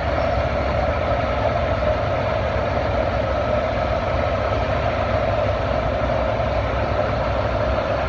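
Farm tractor engine running steadily at a constant pitch, with a low rumble under a strong steady hum.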